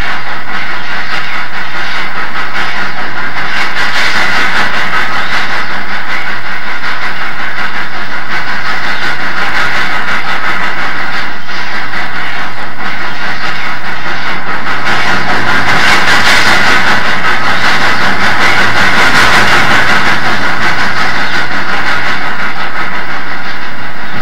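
Southern Pacific AC-11 cab-forward steam locomotive, an oil-fired 4-8-8-2 articulated, working under steam: a loud, steady rush of exhaust and running noise that swells for a few seconds about two-thirds of the way through.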